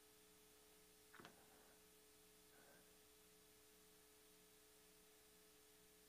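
Near silence: a faint steady electrical hum, with one soft click about a second in.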